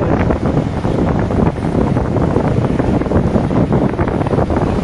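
Wind buffeting the microphone of a camera on a moving motorcycle, over the running motorcycle engines and road noise.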